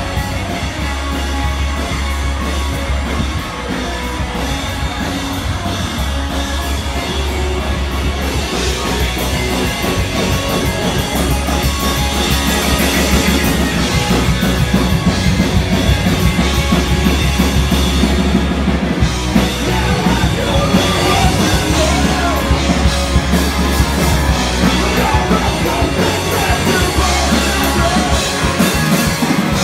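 Loud rock music with a drum kit and singing.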